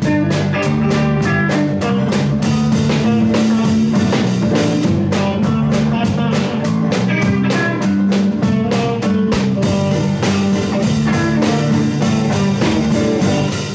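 Live band playing an instrumental passage: drum kit keeping a steady driving beat under electric guitar, acoustic guitar and electric bass.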